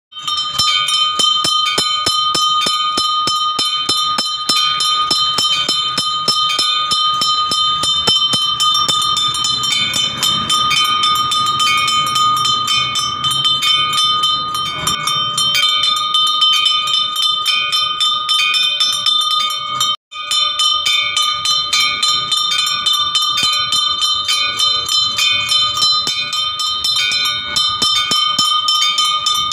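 Temple bell rung rapidly and without pause during a Hindu puja: a bright, steady ringing built from quick repeated strikes. It breaks off for an instant about two-thirds of the way through.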